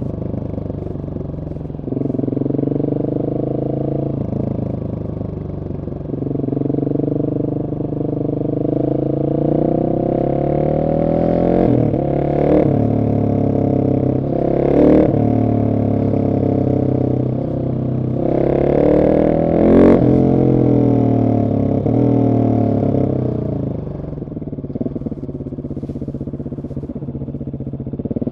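2021 Husqvarna 701 SM's single-cylinder engine through a de-catted Arrow exhaust, pulling hard and shifting up through the gears, the revs climbing and dropping sharply again and again. A few brief sharp bursts come at the loudest peaks, the strongest about two thirds of the way in.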